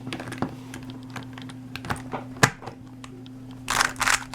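Plastic Rubik's cube being turned by hand: scattered clicks as the layers turn, then a quick flurry of clacks a little before the end.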